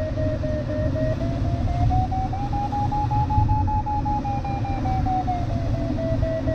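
A glider's audio variometer beeping in quick, even pulses, its pitch rising over the first few seconds and then falling back as the climb rate strengthens and eases while circling in lift. Under it runs a steady rush of air noise in the cockpit.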